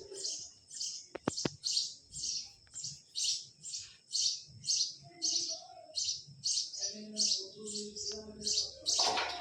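A bird chirping over and over in a steady rhythm, about two to three short high chirps a second.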